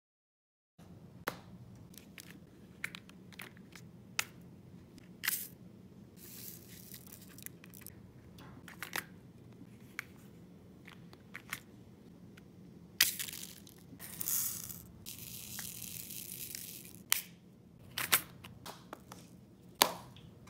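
Plastic packets of diamond-painting drills rustle and crinkle as they are handled, in two longer stretches, with scattered small clicks and taps of plastic bead containers and tools throughout.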